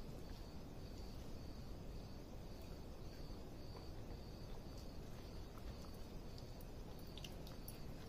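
A cricket chirping faintly, a short high chirp about twice a second, over steady low background noise. A few soft clicks near the end from fingers working rice on a steel plate.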